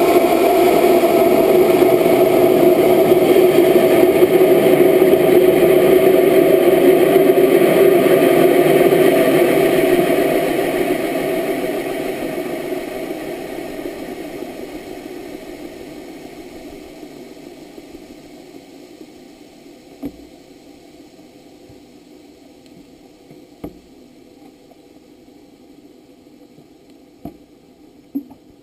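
Onboard sound of the GoFast rocket's motor burning: a loud, steady noise that fades away after about ten seconds as the motor burns out, leaving only a faint hiss and a few sharp clicks near the end.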